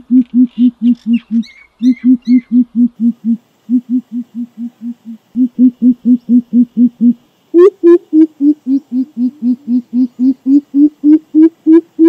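Greater coucal (crow pheasant) calling a deep, rapid series of hoots, about five a second, in runs broken by short pauses. The hoots shift to a higher pitch about seven and a half seconds in.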